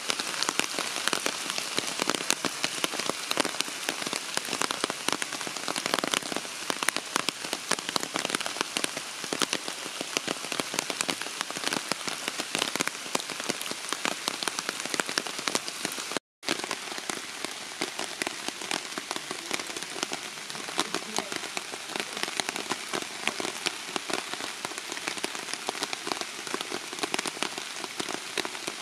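Steady rain, with many separate drops striking. The sound cuts out for a moment about sixteen seconds in, then goes on as before.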